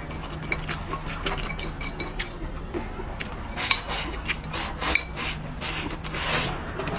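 Wooden chopsticks clicking and scraping against a ceramic bowl as food is pushed into the mouth, with eating mouth sounds and a short slurp near the end.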